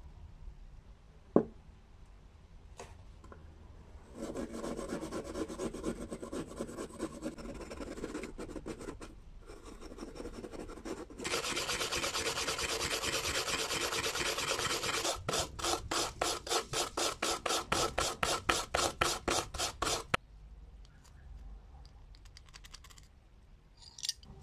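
Steel wool scrubbing rust off old steel pliers. It goes as scratchy rubbing, then a steady stretch, then quick back-and-forth strokes about five a second, and it stops about twenty seconds in. A single sharp click comes about a second in.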